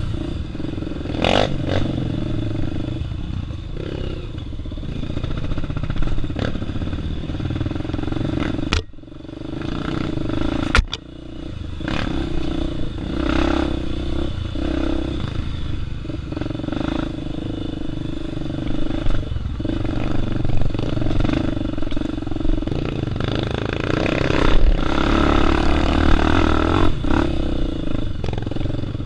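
Single-cylinder four-stroke trail bike engine running under constantly changing throttle, heard from on board, with the bike's chassis clattering over rough ground. The engine note drops off sharply twice, about nine and eleven seconds in, before picking up again.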